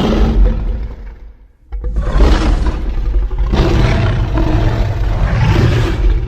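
Godzilla roar sound effects: one loud roar fading out about a second and a half in, then a second, longer roar with several swells in loudness.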